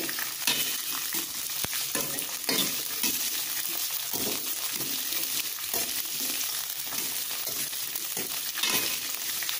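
Green beans sizzling in a little hot oil in a frying pan over a lowered flame, a steady hiss broken by short scrapes as a spatula stirs them every second or two.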